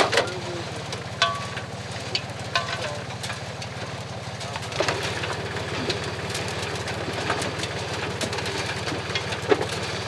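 Potato sorting machine running: a small engine drones steadily with a fast, even pulse, while potatoes and soil tumble through the wire drum and over the chain conveyor in irregular knocks and rattles.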